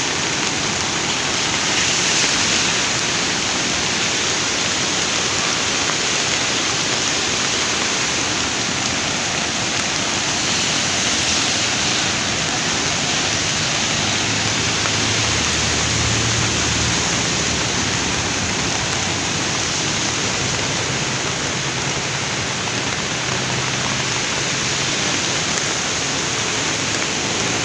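Steady rush of heavy rain together with a river in flood, brown floodwater running high and fast along the bank.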